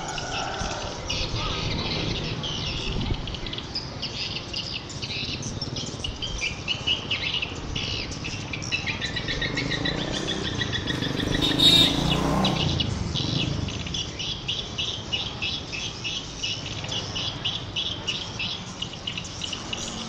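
Edible-nest swiftlets chirping in a dense, continuous twittering chorus of rapid high chirps. About twelve seconds in there is a brief louder sharp sound.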